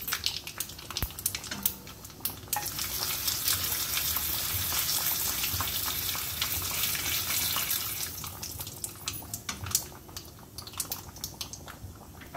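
Mustard seeds, fenugreek seeds and urad dal crackling and sizzling in hot mustard oil in a small tempering pan, with many sharp pops throughout. The sizzle turns denser and louder from about two to eight seconds in, while the seeds are stirred with a wooden spatula.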